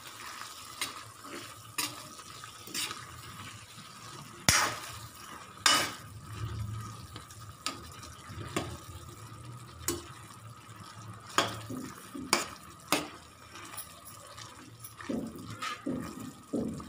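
Steel spoon stirring chopped tomatoes, green chillies and herbs in a kadai, clinking and scraping against the pan about once a second, over a faint steady high hum.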